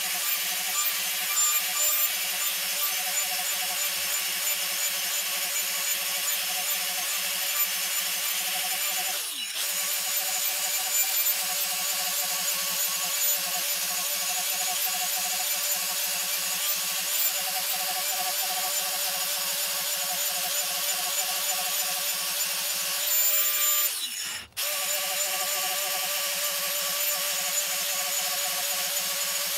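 Angle grinder with a small disc running steadily as it cuts scalloped facets into the wood of a bowl, with a high motor whine over the hiss of the cutting. The sound drops out briefly twice, about a third of the way in and near the end.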